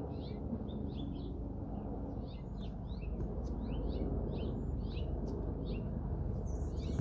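Small birds chirping: short high notes repeated a few times a second, over a steady low background rumble.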